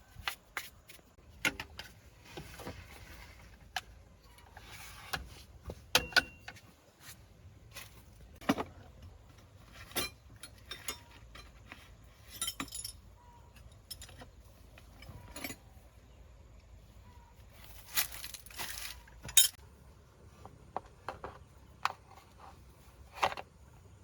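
Metal hand tools and truck parts clinking and knocking in irregular, scattered strikes, with a few short scraping stretches between them, as in hands-on mechanical repair work.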